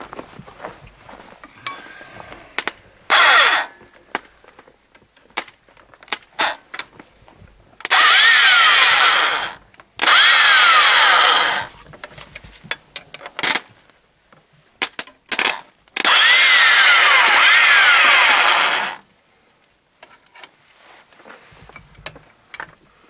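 UTB 650 tractor's electric starter motor, jumped across its terminals with a screwdriver, cranking the cold four-cylinder diesel at −15 °C in four bursts: one brief, then three of two to three seconds. In each burst the whine falls in pitch and picks up again, and the engine does not start. Light clicks and taps of the tool come between the bursts.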